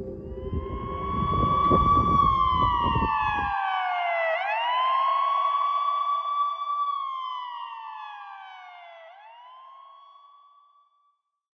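Emergency vehicle siren wailing: a high held tone that slides slowly down and then sweeps quickly back up, twice, fading out near the end. Outdoor wind noise lies under it for the first few seconds and cuts off abruptly.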